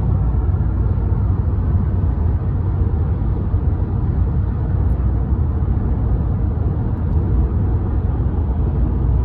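Steady road and engine noise of a car driving on the highway, heard from inside the cabin: a constant low rumble with no changes.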